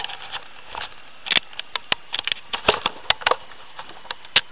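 Handling noise from a camera being set down and repositioned: an irregular string of sharp clicks and knocks with some rubbing between them.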